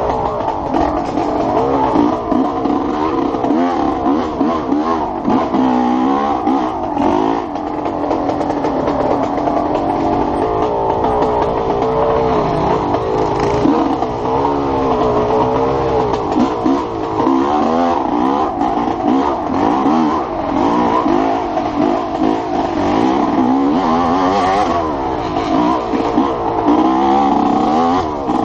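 Enduro motorcycle engine revving up and down continuously under hard riding, its pitch rising and falling every second or so as the throttle opens and closes, over the clatter of the bike on a dirt trail.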